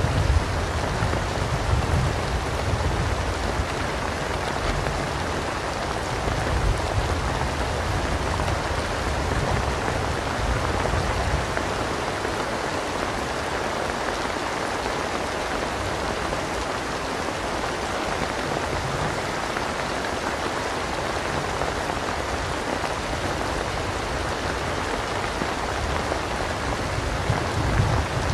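Steady heavy rainstorm, an even hiss of rain falling on surfaces. A low thunder rumble trails off over the first seconds and stays faint after that.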